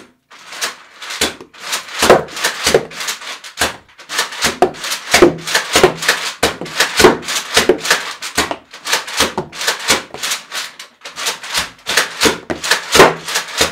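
Sheet Storm toilet-paper blaster worked and fired over and over, shooting wet toilet-paper wads: a long run of sharp mechanical strokes, two or three a second, with brief pauses about four seconds in and again near eleven seconds in.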